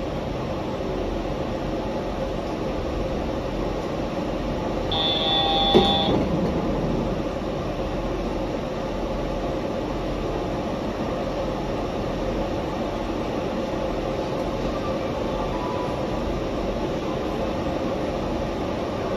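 Yurikamome rubber-tyred automated train standing at a station with a steady hum. About five seconds in, a high electronic chime sounds for about a second and ends in a clunk, the doors shutting before departure.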